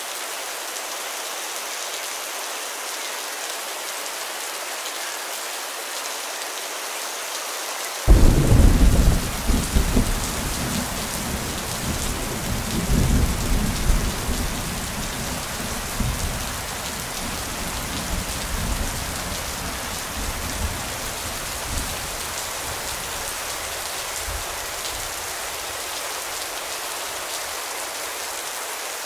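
Steady rain falling, with a sudden clap of thunder about eight seconds in that rumbles on for several seconds and dies away in smaller rolls.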